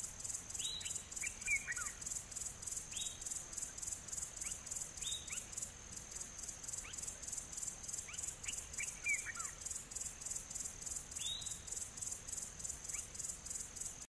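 Outdoor nature ambience: a steady insect chorus chirping in even pulses, about four or five a second, with bird calls over it. The bird calls are short whistles sliding downward every few seconds and a couple of quick runs of falling chirps.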